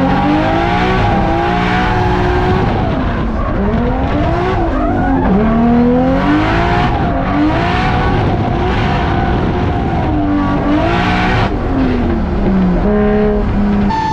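Drift car driven hard: the engine revs rise and fall again and again as the throttle is worked, with tyres squealing and skidding in repeated surges.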